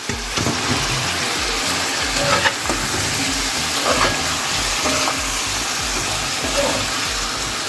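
Pieces of corn on the cob sizzling steadily as they fry in curry and oil in a pot. A few short scrapes of a metal spoon against the pot break through the hiss.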